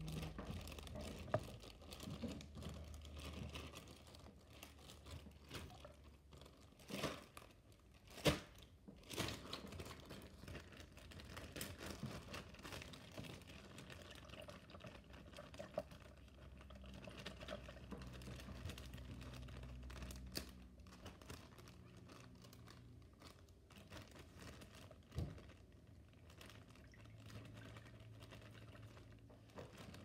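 Plastic zip-top bag being crinkled and handled, with a few sharp clicks and taps scattered through.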